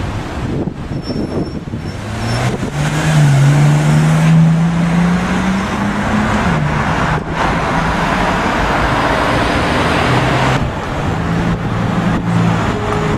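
Bentley Continental GT accelerating away. Its engine note rises and peaks about four seconds in, followed by a steady wash of tyre and road noise. Near the end the sound changes abruptly to another car's engine running at low revs.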